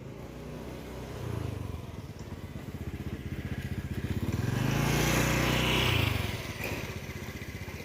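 A motor engine running with fast, even pulses, growing louder to a peak about five seconds in and then fading.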